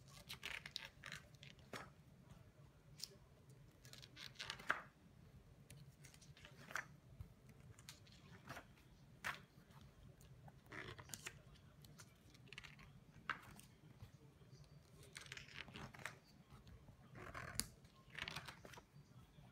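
Pages of a large illustrated book being leafed through and handled: faint, irregular papery rustles and swishes with a few light clicks.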